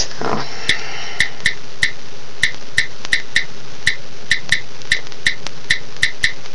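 Keyboard clicks from an Apple iOS device's on-screen keyboard as an email address is typed: about twenty short ticks at an uneven pace, roughly three a second.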